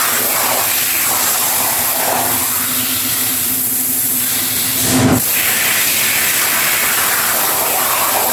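A steady loud hiss, with a brief low thump about five seconds in.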